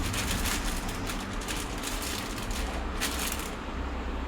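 Soft rustling and light handling noises as small angle-grinder accessories and their packaging are picked up, with a brief burst of rustling about three seconds in, over a low steady hum.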